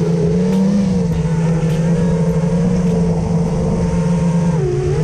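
FPV racing quadcopter's brushless motors and propellers whining in flight, as heard from the onboard camera. The pitch holds fairly steady, dips briefly near the end as the throttle eases, then climbs back.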